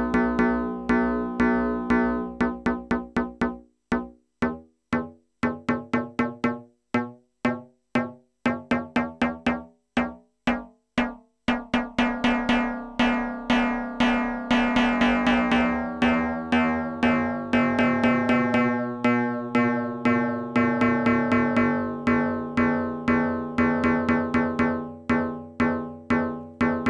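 Noise Engineering Tymp Legio Eurorack drum module in Boing mode, playing a sequenced run of metallic, bell-like hits. The decay is being turned: the hits are short and separate through the middle, then from about twelve seconds in they ring long and blur together, some overtones sliding down in pitch.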